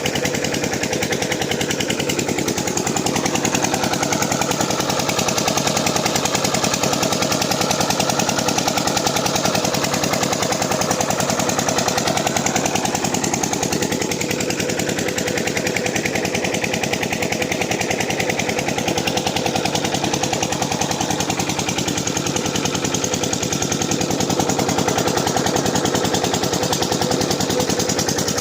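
8 hp Rajkot single-cylinder diesel engine of a water pumpset running steadily, with a rapid, even knocking beat.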